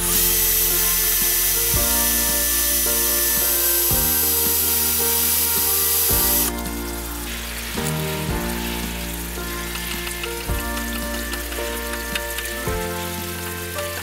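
A small handheld electric power tool runs steadily with a high whine for about six seconds, then cuts off suddenly. A fainter scratchy rubbing on wood follows.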